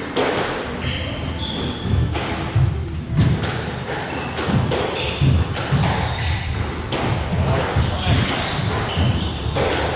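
Squash rally: sharp cracks about every second as the ball is struck by the rackets and hits the walls, with short squeaks of court shoes and thudding footsteps between shots.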